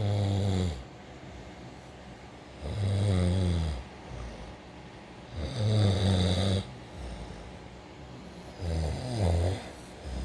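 Snoring: four long snores about three seconds apart, each a low rattle lasting about a second.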